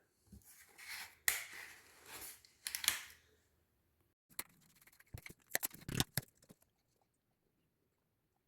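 Quiet handling of a plastic oil bottle and funnel while engine oil is poured into a small engine: soft rustling and pouring noises with a sharp click in the first three seconds, then a cluster of light plastic clicks and taps around five to six seconds in.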